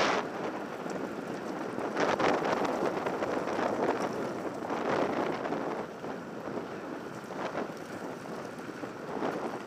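Wind rushing over the microphone, mixed with a mountain bike's tyres rolling and crunching over a gravel track at downhill speed; the rush swells about two and five seconds in.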